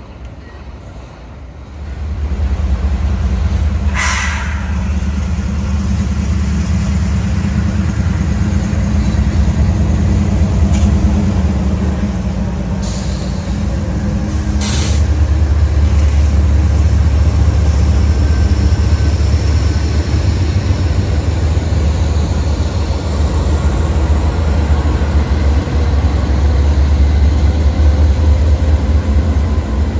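Union Pacific diesel freight locomotives passing close by, a loud, steady, deep engine rumble that comes up about two seconds in and holds.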